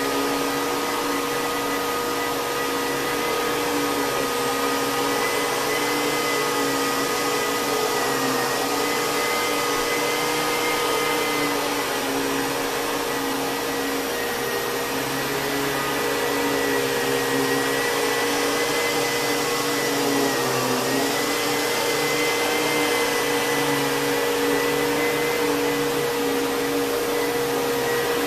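Kenmore Progressive canister vacuum cleaner running steadily, its Lamb electric motor giving a continuous whine with a steady high tone, the pitch dipping briefly about twenty seconds in.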